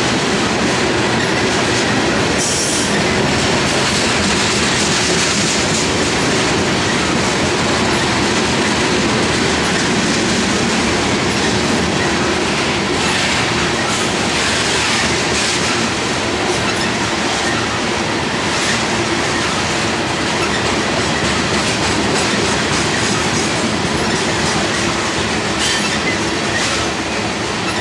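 Freight trains of covered hopper cars rolling past on two parallel tracks: a steady, loud rumble of steel wheels on rail with clickety-clack over the rail joints, and brief wheel squeals now and then.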